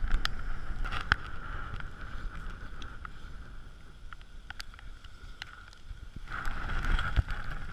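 Skis sliding and scraping over snow with wind buffeting the microphone, a steady hiss with a few sharp clicks; it grows louder about six seconds in.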